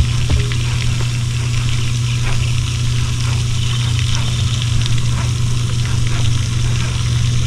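Steady low drone of a vehicle's engine and road noise while driving, unbroken throughout.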